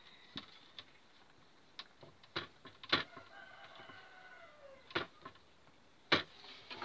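Scattered clicks and sharp knocks as a ceramic lamp socket is fastened onto a ceiling-light fixture with a screwdriver, the loudest about three seconds in and again near the end. A drawn-out call, falling in pitch, sounds in the background for nearly two seconds in the middle.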